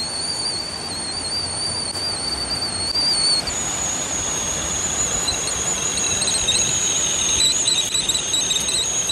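Wood-fired stainless-steel chimney kettle whistling at the boil as steam forces out through its spout. A high wavering whistle jumps higher about three and a half seconds in, then turns warbly with several tones at once, over the steady rush of a creek.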